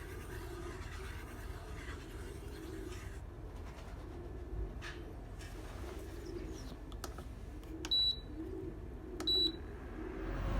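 Two short, high electronic beeps about a second apart near the end, over a low steady hum and a soft, repeated low wavering call.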